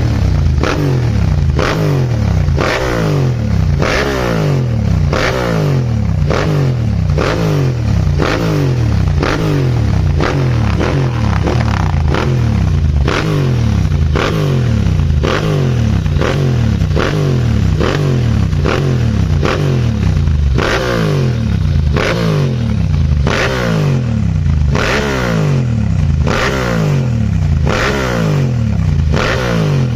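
Ducati Monster S2R 1000's air-cooled L-twin engine being revved over and over through an aftermarket exhaust with the silencers and catalysts replaced, the revs rising and falling back in quick repeated blips.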